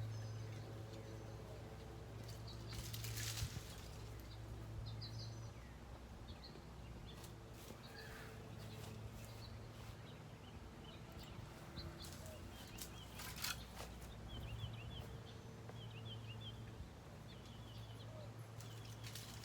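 Birds chirping with many short high calls over a low steady hum that fades out midway and returns. Three brief rustling bursts break in, about three seconds in, past the middle and near the end.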